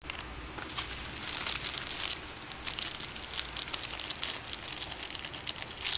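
Clear plastic packaging crinkling and crackling as it is handled, with dense small clicks that keep going.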